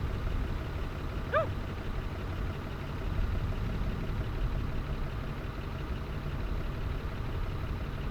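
A steady low engine hum, with one short rising-and-falling call about a second and a half in.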